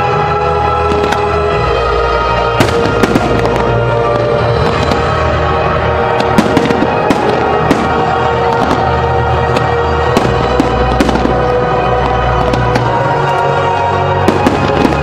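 Aerial fireworks shells bursting in an irregular string of sharp bangs from a couple of seconds in, over loud music from the show's sound system.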